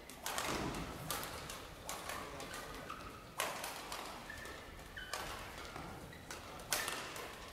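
Badminton rally in a large gymnasium: rackets striking the shuttlecock roughly once a second, each hit echoing through the hall, with short squeaks of court shoes on the floor between the hits.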